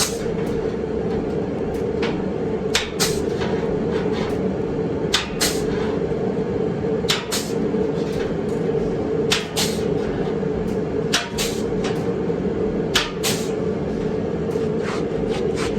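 Eastwood panel prep tool punching holes along the edge of sheet-metal body panel, a sharp metallic click-and-snap about every two seconds, over a steady low hum.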